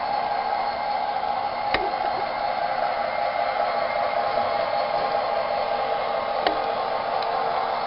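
Model Rio Grande diesel locomotive running on the layout track: a steady whirring hum, with two faint clicks, one about two seconds in and one near the end.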